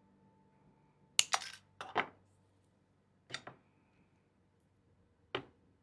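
Several sharp metallic clicks and clinks from jewellery pliers and copper wire being handled in wire wrapping, in four short clusters, after the last of a piano note fades out.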